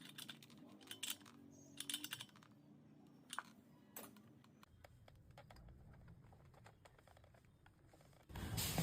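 Faint, scattered clicks and light taps of hand tools being worked around the chainsaw's spark plug. A low hum comes in about halfway, and louder music starts just before the end.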